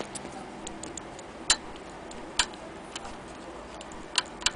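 Sharp mechanical clicks from a Frister & Rossmann sewing machine's handwheel and knurled stop-motion knob being turned by hand. There is a loud click about a second apart, with fainter ticks between, and two loud clicks close together near the end.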